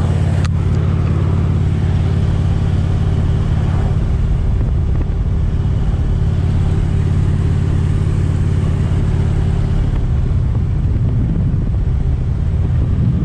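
Harley-Davidson Electra Glide's V-twin engine running steadily under way, with rushing wind and road noise. The engine note becomes unsteady about ten seconds in.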